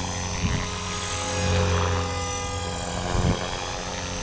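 Blade Fusion 360 electric RC helicopter in flight: steady whine of its motor and rotor drone. The pitch dips and rises slightly as it flies a funnel manoeuvre.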